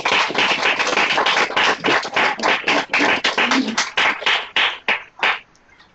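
A small group applauding, the clapping dying away about five seconds in.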